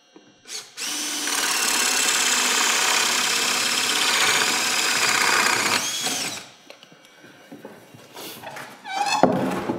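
Cordless drill turning a 5/8 inch spade bit through a wooden mud sill: a short trigger blip, then about five seconds of steady running with chips being cut, winding down as it stops. A brief louder sound follows near the end.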